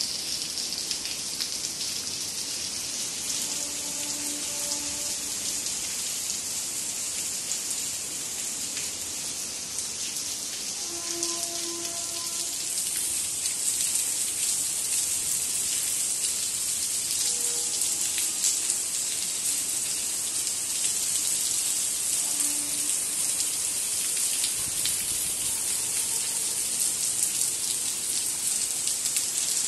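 Heavy rain pouring onto a paved path and waterlogged lawn, a steady dense hiss that gets louder a little under halfway through.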